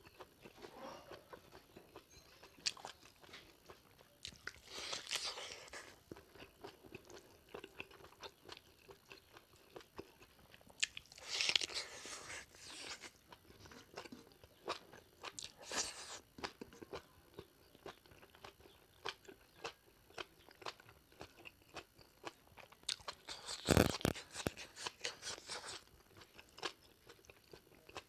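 A person chewing and biting into pork leg curry close to the microphone, with many small wet clicks and smacks. A few louder, longer rushes of sound come in between, the loudest about two-thirds of the way through.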